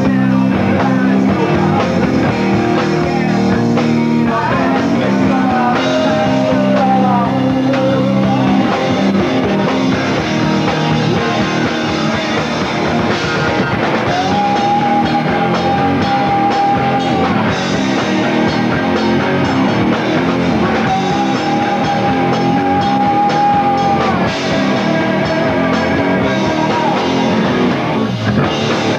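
Live rock band playing: electric guitars over a drum kit, with long held high notes twice in the second half.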